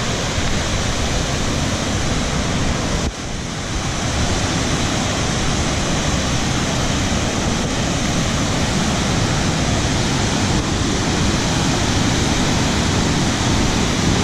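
Loud, steady rush of a waterfall heard up close, with a brief dip about three seconds in.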